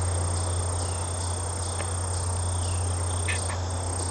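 Crickets and other insects chirping, with a steady high trill and faint evenly repeating high ticks, over a constant low hum.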